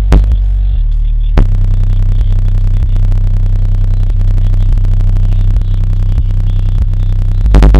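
Bass-heavy electronic music played loud through two TNT 10-inch subwoofers in a ported box, heard inside the closed car cabin with the windows up. Deep, held bass notes shift in steps, and a pounding beat kicks in near the end.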